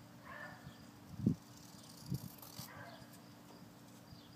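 Faint rustling and snipping of scissors cutting excess fabric off a tin bucket, with two dull thumps about a second and two seconds in.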